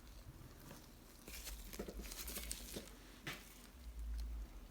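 Faint rustling and scattered light clicks as brake rotors are wiped and cleaned by hand, with one sharper tap about three seconds in.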